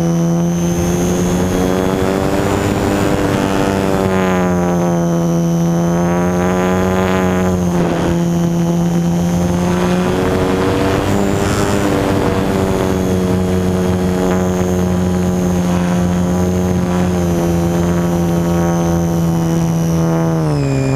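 Electric motor and propeller of a Super Cub LP radio-controlled model airplane, heard from the camera on board: a steady drone with a thin high whine. Its pitch sags briefly about eight seconds in and falls near the end.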